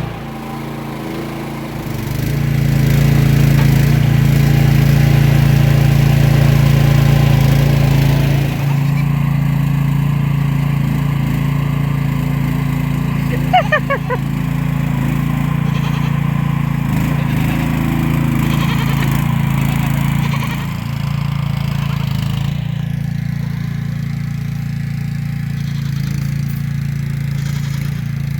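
Mini excavator's small engine running steadily at high throttle, louder for several seconds near the start as the machine works. About halfway through there is a brief squeak with a knock.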